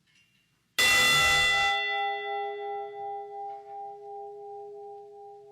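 A memorial bell struck once, tolled in memory of a lost crewman. A sharp strike about a second in, then a long ring that wavers as it slowly fades.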